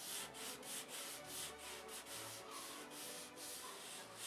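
Sandpaper rubbed back and forth by hand over the primed wooden airframe of a control line stunt model airplane, a hissing scrape in even strokes about twice a second, taking the primer down smooth.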